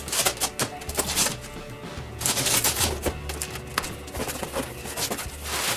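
Large cardboard box being cut open and unpacked: a blade slitting the packing tape, then the cardboard flaps pulled back, giving irregular sharp clicks, knocks and rustles over background music.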